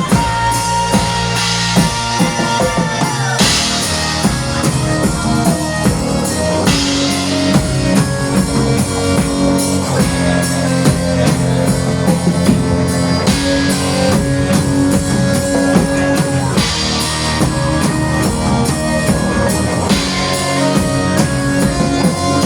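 Live folk-rock band playing an instrumental passage with no vocals, drum kit keeping a steady beat under sustained pitched instruments, with cymbal crashes every few seconds.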